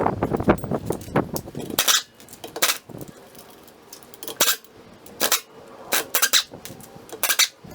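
Metal tools and parts clinking and clanking during hands-on work on a car's wheel and brake: handling noise at first, then a series of separate sharp metallic clinks at irregular intervals.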